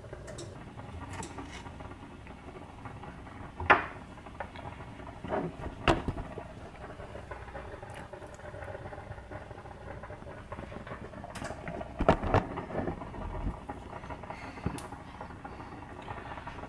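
Light scattered clicks, knocks and small water sounds from fingers handling a tomato in a bowl of hot water, over a faint steady background hum. The sharpest knocks come about four seconds and about twelve seconds in.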